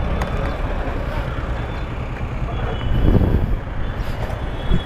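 Engine running steadily at idle with a low rumble, swelling briefly about three seconds in.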